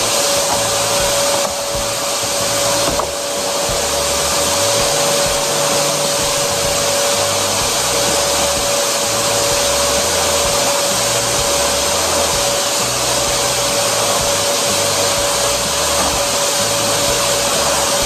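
Samsung SC4140 canister vacuum cleaner running, its floor nozzle working over carpet: a loud, steady rush of suction with a steady motor whine, dipping briefly twice in the first few seconds.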